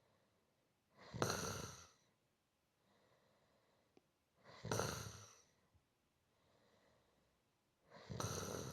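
A person snoring softly in a slow, even rhythm: three snores about three and a half seconds apart, each lasting about a second, with fainter breaths out between them.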